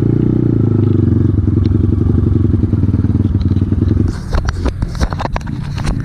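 Off-road motorcycle engine running at a steady pitch. About four seconds in it quiets, and a run of sharp knocks and clatters follows.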